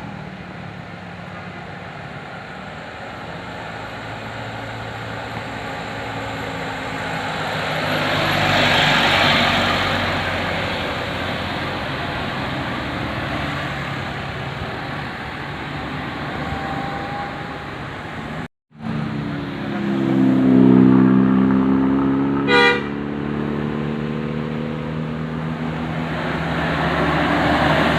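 Bus and traffic engines running as vehicles pass, swelling as one goes by. About two-thirds of the way through, the sound drops out for an instant, then a horn sounds with several steady tones, followed a moment later by one short, sharp horn blast.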